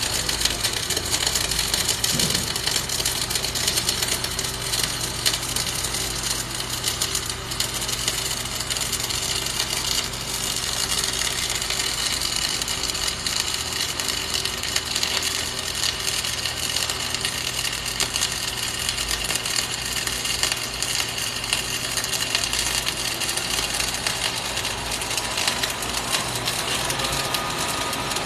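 Welding arc crackling and sizzling steadily as a weld bead is dragged around a steel plate joint, over a steady low hum.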